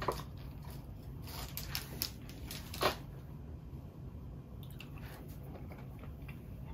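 Plastic building bricks being handled and pressed together, giving scattered sharp clicks, the loudest near the start and about three seconds in.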